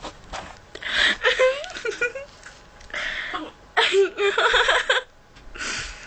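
A girl with a bout of hiccups: five short vocal outbursts, hiccups mixed with laughing, the longest one about four seconds in.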